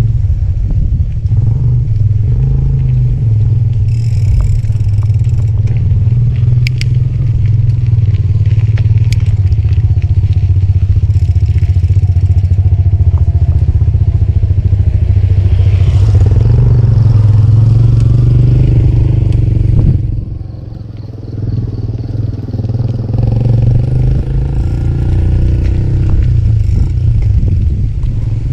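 Wind buffeting the microphone of a camera on a moving bicycle: a loud, steady low rumble that eases briefly about twenty seconds in.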